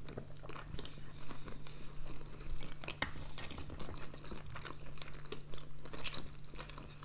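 Close-miked chewing of sushi rolls: many small, irregular mouth clicks and crunches, over a steady low hum.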